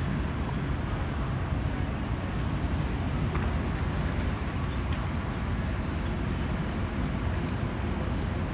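Diesel-electric freight locomotives approaching slowly: a steady, low engine rumble.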